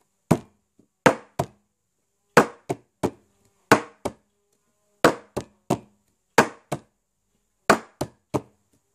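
Cup-game rhythm beaten out by hand on a tabletop with an upside-down drinking glass. Sharp claps and taps come in short groups of two or three, a new group about every second and a third.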